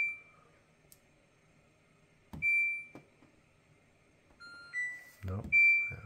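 Haier dishwasher's touch control panel beeping as its buttons are pressed: short single high beeps at the start, about two and a half seconds in and near the end, with a short rising run of tones just before the last beep.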